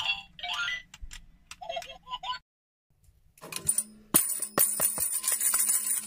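Short electronic tune from a baby's toy TV remote. After a brief gap, about three and a half seconds in, a small toy tambourine is tapped by hand, with a run of sharp taps and its metal jingles ringing.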